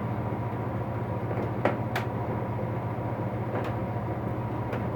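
A steady low hum with four short, sharp clicks, the clearest two close together about a second and a half to two seconds in.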